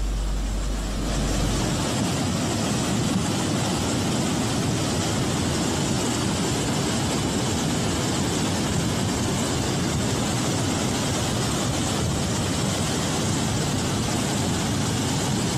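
Muddy floodwater rushing in a swollen hill stream: a loud, steady, unbroken rushing noise.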